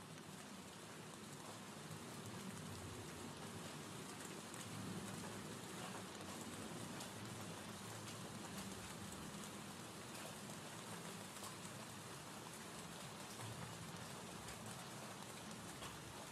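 Faint, steady rain falling, with scattered small drop ticks: a gentle rain ambience.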